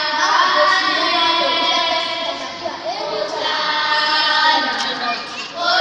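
A group of children singing together in chorus.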